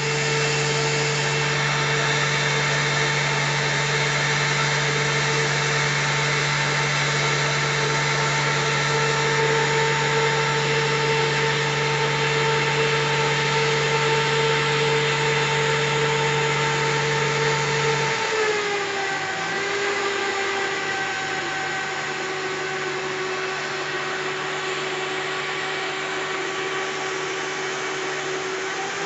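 Kirow Multi Tasker railway crane's engine and hydraulic drive running under load as it lifts a freight wagon, a steady whining drone. About two-thirds of the way through its pitch drops a little and then holds steady at the lower note.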